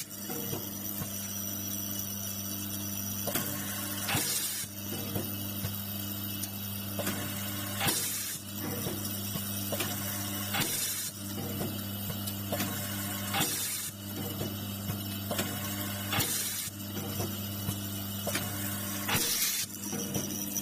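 Vibratory bowl feeder humming steadily, with small metal nuts rattling and chattering as they travel up the bowl's spiral track. About every three seconds the pneumatic feed mechanism gives a short hiss of compressed air.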